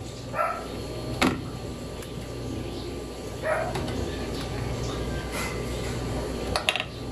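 A dog barking twice in the background, one short bark about half a second in and another a few seconds later. Light clicks of a spatula against the cutting board and plate, one about a second in and a few near the end.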